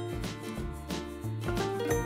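Background music: a tune of held pitched notes over a bass line with a steady beat.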